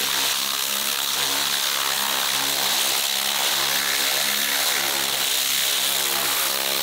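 Compressed-air blow gun blasting a steady, loud hiss of air over a flood-corroded battery pack, knocking debris loose, with a steady mechanical hum underneath.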